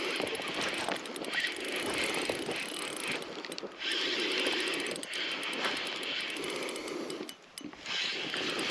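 Fishing reel being cranked in short bursts of about a second each, winding in a hooked fish.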